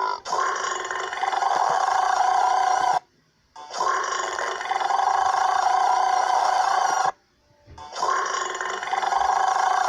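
A long, drawn-out burp, heard three times in a row with short gaps. Each is about three seconds long and drops to a lower pitch partway through.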